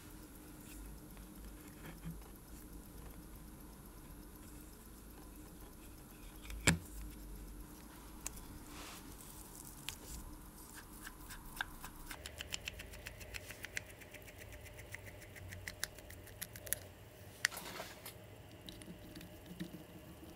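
Faint handling of a metal Bergeon watch-crystal tool as its knurled parts are turned and screwed together. There is one sharp click about a third of the way in, then from about halfway a run of rapid fine clicks for several seconds.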